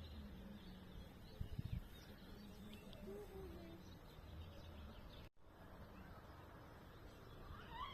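Faint outdoor ambience with scattered small bird chirps and a brief low knock about a second and a half in; the sound drops out for a moment just after five seconds.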